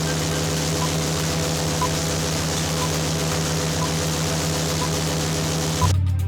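Wind machine blowing a strong gust: a steady rushing noise over a low droning hum. It cuts off suddenly near the end.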